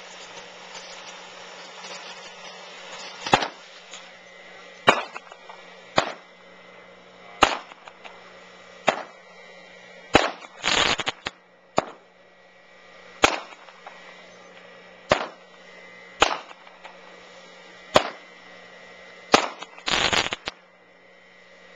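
TNT Fireworks 'S.O.S.' consumer firework. It hisses as a spark fountain for the first few seconds, then fires a string of sharp bangs about every second and a half. About halfway and again near the end comes a short burst of rapid crackling.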